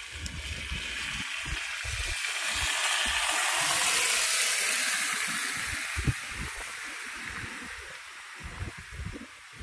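A vehicle passing on a slushy, snow-covered street: its tyre hiss swells to a peak about four seconds in, then fades away. Irregular low thumps run underneath.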